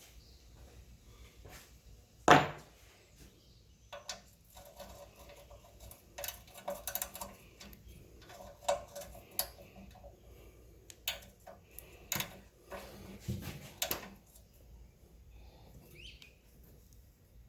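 Small metal parts and tools being handled and set down on a workbench: a string of irregular clinks, knocks and scrapes, with one loud short sound about two seconds in.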